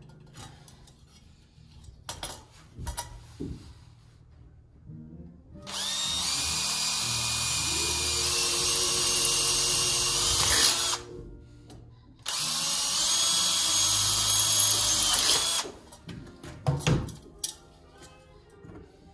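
Cordless drill running under load in two long runs, the first about five seconds and the second about three, drilling into wood. A few sharp knocks follow near the end.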